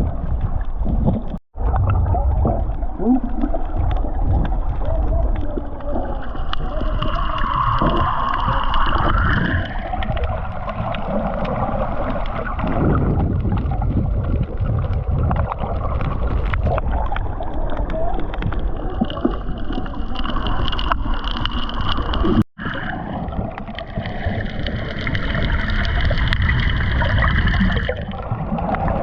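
Water sloshing and gurgling around a GoPro held at and under the surface while snorkeling, a steady churning rumble. It breaks off for an instant twice, about a second and a half in and again near the end.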